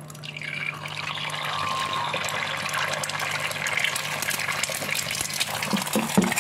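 An egg frying in hot oil in a small pan, sizzling steadily. The sizzle starts up about half a second in as the egg goes into the oil. A few short soft knocks come near the end.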